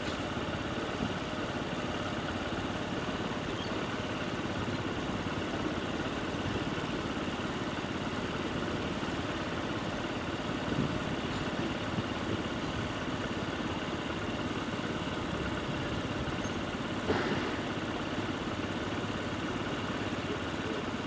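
Steady low drone of ship engines, with one short knock about seventeen seconds in.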